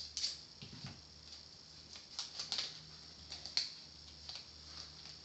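Foil Pokémon booster pack wrapper being torn open and handled, a run of short, irregular crinkles and crackles.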